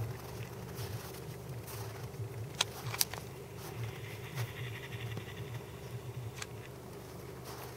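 Camera handling noise while the view swings: two sharp clicks about two and a half and three seconds in, over a steady low hum.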